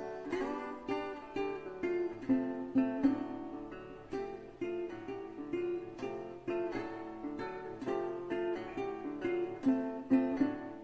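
Background music: a plucked string instrument picking a melody, several notes a second in a steady flow.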